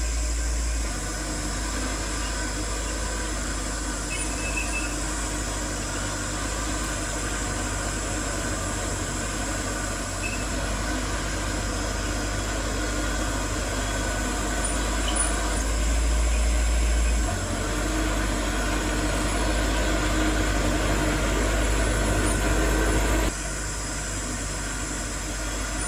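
Heavy diesel construction machinery running, a steady low engine drone. It grows louder about two-thirds of the way in and drops off abruptly near the end.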